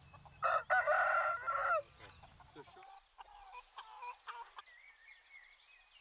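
A rooster crows once, a loud call of about a second and a half starting about half a second in, followed by a few faint short calls.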